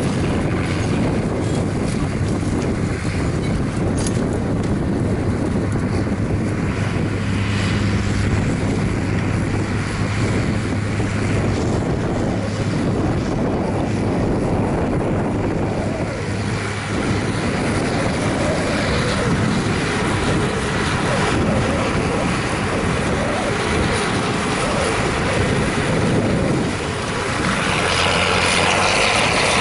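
International Harvester 5288 tractor's six-cylinder diesel engine running steadily under load while pulling a six-bottom moldboard plow. It grows louder and brighter near the end as the tractor comes close.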